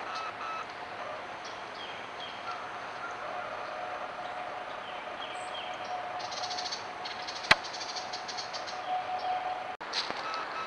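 Small birds chirping in woodland, a few short chirps and falling notes over a steady hiss, picked up by a trail camera's microphone. A single sharp click about seven and a half seconds in.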